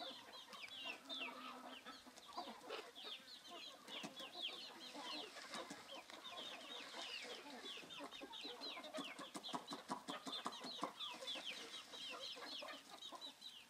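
A flock of free-range local indigenous chickens calling: a dense, overlapping stream of short, high, falling chirps, with softer clucks mixed in.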